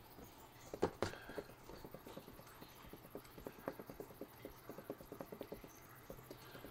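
Used engine oil dripping in quick, irregular drops, faint, with a couple of louder knocks about a second in.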